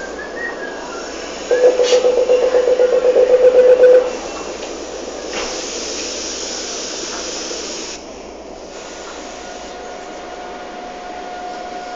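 Inside an Alstom series 4000 electric commuter train: a loud, rapidly pulsing warning tone sounds for about two and a half seconds, the door-closing warning at the station stop. A hiss follows, then a steady electric motor whine sets in near the end as the train starts moving.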